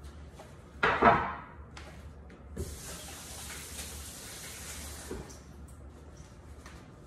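A wooden cutting board is set down on a granite counter with a loud clatter about a second in. A kitchen tap then runs for about two and a half seconds, starting and stopping with a knock.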